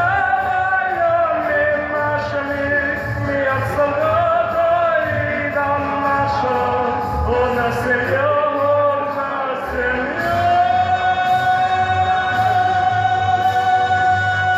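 Man singing a Russian song into a handheld microphone over a backing track with a steady beat, settling into one long held note about two-thirds of the way through.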